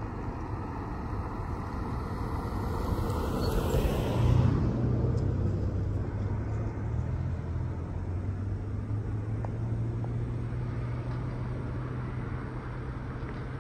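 A car passes on the road, its sound rising to a peak about four seconds in, with a falling whine as it goes by. A steady low hum follows.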